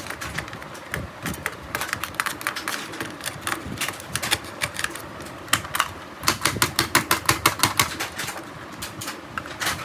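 Rapid series of sharp clicks and taps, coming in runs of several a second, densest about halfway through and again near the end.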